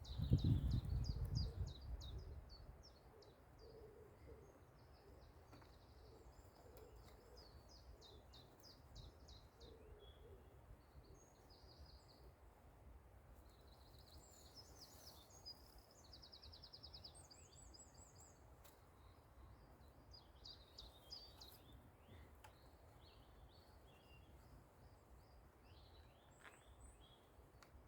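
Small songbirds calling and singing, several overlapping, with short chirps and quick trills coming and going. There is a low rumble in the first two seconds.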